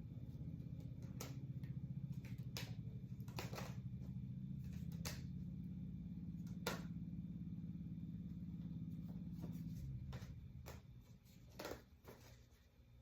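A low, steady mechanical hum that dies away about ten seconds in, with scattered light clicks and taps over it.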